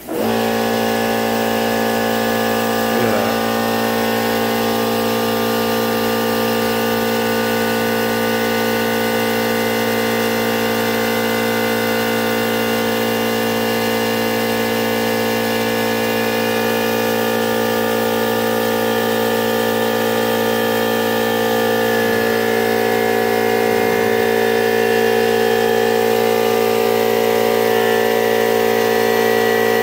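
An electric motor-driven machine starts abruptly and runs at a steady speed with a constant, even hum, getting slightly louder near the end.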